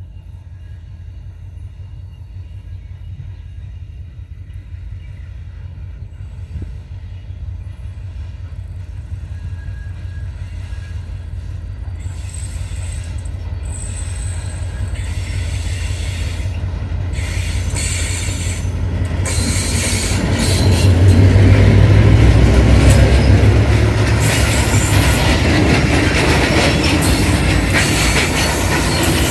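Freight train hauled by two class 2044 diesel locomotives approaching. The low engine drone grows steadily louder and peaks about two-thirds of the way through as the locomotives pass. The wagons then roll by with continuous wheel-on-rail noise and squealing.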